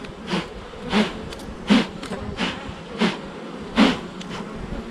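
Honeybees buzzing around a frame lifted out of the hive: a steady hum with about six brief louder swells, roughly one a second.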